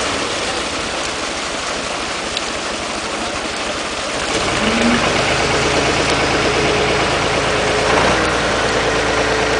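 A truck engine running to power a hydraulic crane, over a steady hiss of splashing water. About halfway through, the engine's hum grows louder and steadier as the crane lifts a loaded net basket out of the pond.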